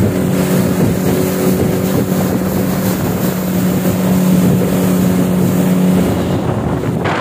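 A 50 hp outboard motor driving a speedboat at speed: a steady drone under the rush of water and wind. Its main tone fades about six seconds in as a burst of wind and spray noise swells.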